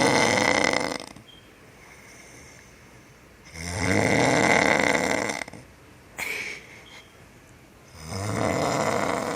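A sleeping man snoring loudly: three long, rasping snores about four seconds apart, each lasting around two seconds, with quiet gaps between.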